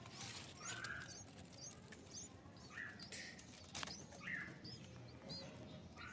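Faint, scattered high chirps from small birds, a few short calls a second apart, with soft blips of rustle between them.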